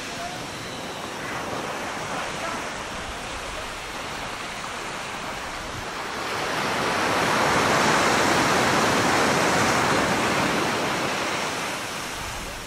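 Sea surf washing up on a sandy beach, a steady rushing hiss. A wave swells in about six seconds in, is loudest around eight to ten seconds, then falls back.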